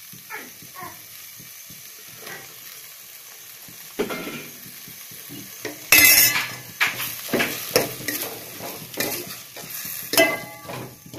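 A steel ladle stirs and scrapes in a stainless steel pot while onions, tomato and cut okra sauté in oil with a faint sizzle. The first few seconds are quiet. About six seconds in there is a loud sudden clatter, followed by repeated ladle scrapes and clinks against the pot.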